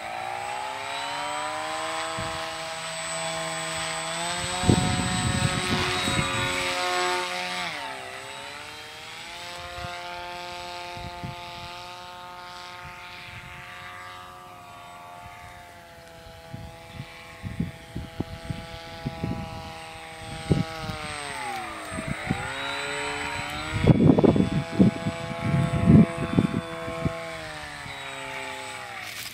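Electric motor and propeller of a large foam RC flying wing whining steadily under throttle, the pitch dropping sharply and coming back up twice as the throttle is eased off and reapplied. Gusts of wind rumble on the microphone, loudest near the end.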